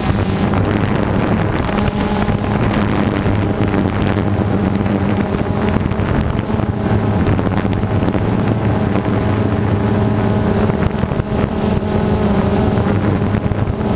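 Steady motor drone with wind noise on the microphone, from the aircraft filming the flyover.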